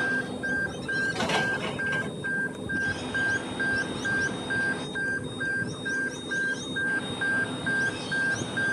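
Railway level-crossing warning bell ringing, a rapid even electronic ding about three times a second, while a train approaches. Faint bird chirps sound above it.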